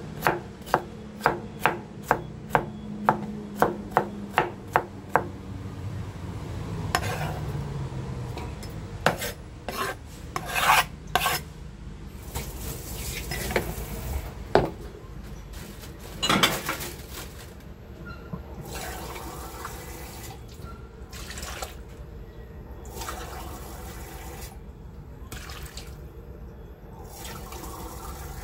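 Large kitchen knife chopping fresh turmeric on a wooden cutting board, about two to three even strikes a second for the first five seconds. Then scraping and clattering as the chopped pieces are pushed off the board into a stainless steel pot, with one loud knock, and in the later part tap water running on and off.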